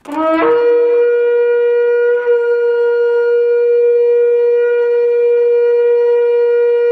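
Shofar blown: a short rising note, then one long, loud blast held steady on one pitch for several seconds.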